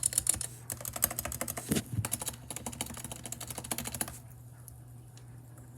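Typing on a tape-modded $30 keyboard: rapid, dense key clacks with a deeper thump a little under two seconds in. The typing stops after about four seconds, leaving only a couple of faint clicks.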